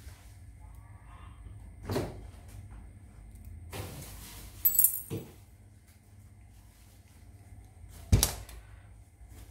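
A steel pick tool clicking and scraping against a small stainless-steel fill valve as its O-ring seal is pried out, with a few sharp metal clinks, the loudest about five and eight seconds in.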